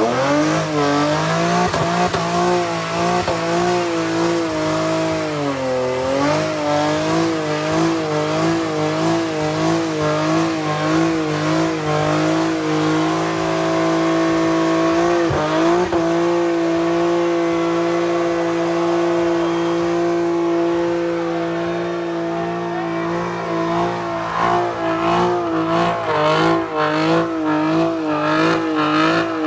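A car's engine held at high revs during a burnout, its rear tyre spinning and squealing on the tarmac. The revs rise and fall in quick waves about once a second, hold steady for a few seconds around the middle, then waver again near the end.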